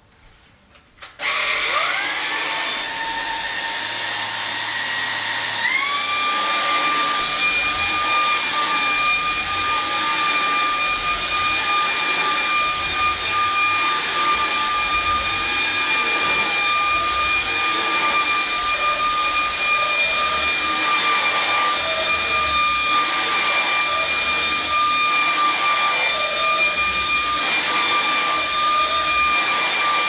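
Stick vacuum cleaner switched on about a second in, its motor whine rising quickly to a steady pitch. A few seconds later the whine steps up to a higher pitch, and the vacuum then runs steadily.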